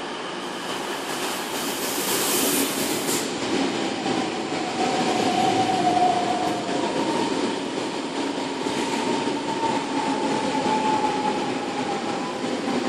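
ICE high-speed train rolling into the station platform, with its brakes squealing in thin, slightly wavering tones from about four seconds in. There is a brief hiss between about one and three seconds in.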